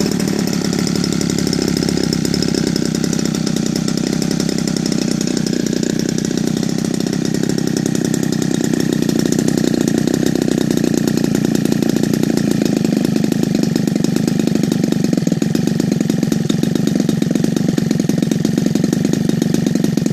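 Evolution 45 gasoline two-stroke model-aircraft engine on a CH CDI ignition, running steadily on a test stand and driving a wooden propeller. It gets slightly louder from about eight seconds in.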